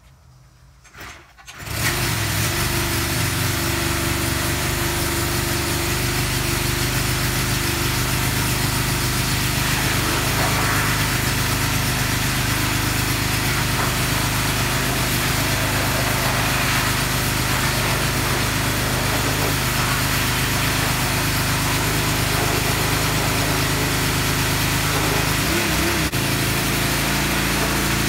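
Small-engine pressure washer running steadily, with the hiss of its water spray. It starts suddenly about two seconds in.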